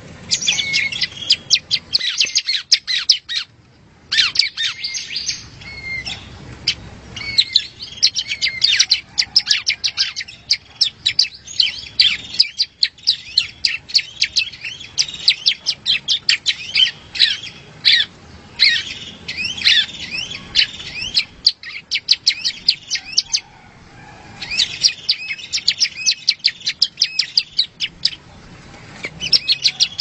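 Small warbler singing a rapid, dry chatter of quick high notes in long runs, broken by short pauses. The longest pause, about two seconds, comes about two-thirds of the way through.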